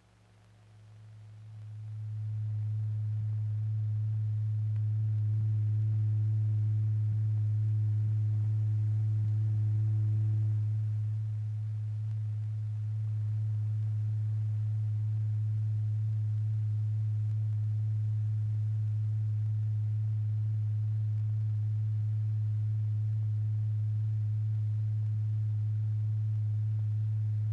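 A low, steady pure tone from a tone generator driving the vibrating diaphragm, with faint overtones above it. It swells up over the first two seconds, dips a little about eleven seconds in, then holds steady.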